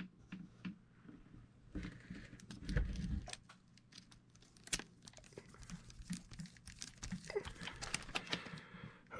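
Scattered small clicks, taps and rustles of hands handling the plastic and metal parts of an RC truck's axle while fitting a pin, with a duller bump about three seconds in.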